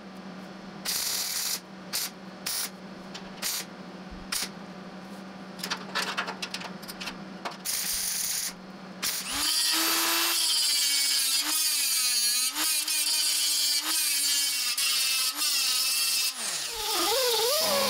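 Wire-feed (MIG) welder crackling in short, irregular bursts as it tack-welds a steel floor bracket. About nine seconds in, an angle grinder with a cutoff disc starts up and runs with a steady whine, dipping in pitch as it shaves the welds flush, then winds down near the end.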